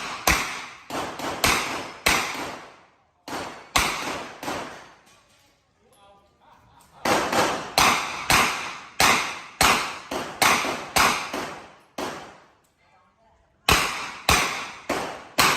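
Revolver shots fired in quick strings, about two a second, each a sharp crack with a short echoing tail. The strings break off for pauses of one to three seconds.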